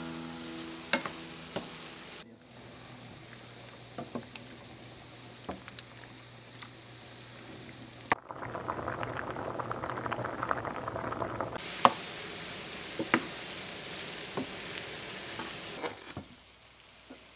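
Vegetables and sausage sizzling in a skillet, with scattered taps and scrapes of a wooden spatula against the pan. After a sudden break about eight seconds in, a pot of pasta water bubbles at a boil for a few seconds, then there is more pan sizzle with clinks.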